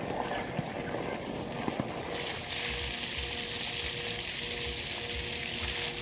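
Spring water pouring from an open pipe spout and splashing, a steady hiss that grows louder about two seconds in.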